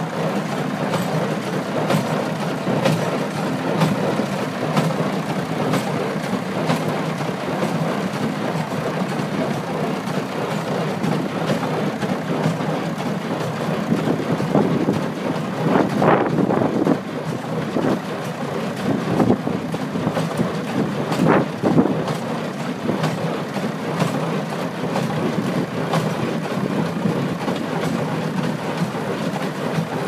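Bamford BL30 small square baler working behind a Fordson Major tractor: steady mechanical running with a regular knocking of the baling mechanism over the tractor's engine, and louder surges about halfway through and again a few seconds later.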